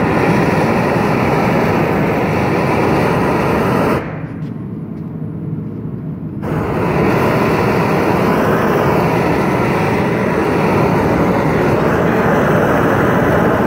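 Hand-held gas torch flame rushing steadily as it heats a cast bronze sculpture for a hot patina. The rush drops off about four seconds in as the flame is taken away, then comes back strongly after a couple of seconds.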